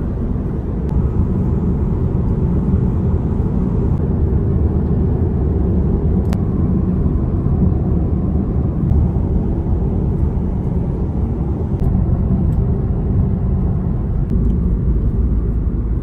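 Steady road and engine noise inside a moving car's cabin, heavy in the low end and even throughout.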